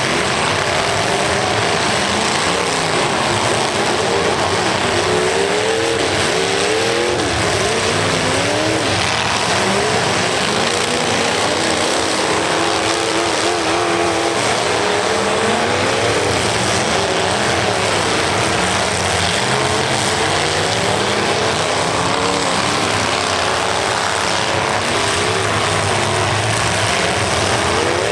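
Several demolition derby cars' engines revving hard and dropping back again and again, overlapping one another, over a dense, loud wash of arena noise.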